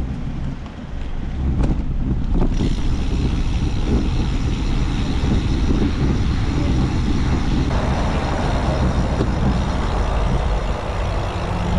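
Wind rumbling on a bike-mounted camera's microphone, mixed with tyre and street-traffic noise, while riding a road bicycle through city streets. The sound changes abruptly about two and a half seconds in and again near eight seconds.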